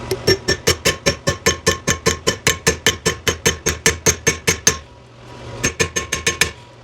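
Hammer tapping rapidly on a steel car door hinge part, about five or six ringing metallic strikes a second for over four seconds, then a short second run of about seven strikes.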